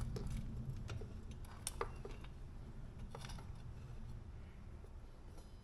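Faint, scattered metallic clicks and taps of a motorcycle's long rear axle bolt, spacers and wheel being worked into place, over a low steady hum.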